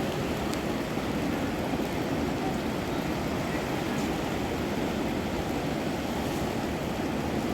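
Heavy rain falling steadily, an even continuous wash of noise.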